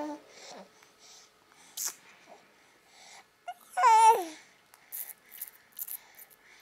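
Baby babbling: a short vocal sound at the start and a louder drawn-out one about four seconds in that falls in pitch as it ends. Then a run of small wet mouth clicks as the baby sucks on its fist.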